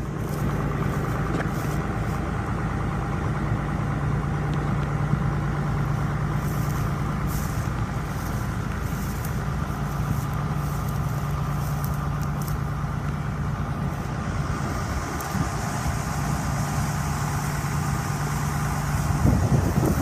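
Vehicle engine running at a steady speed, a constant low hum. In the last second it gives way to wind buffeting the microphone.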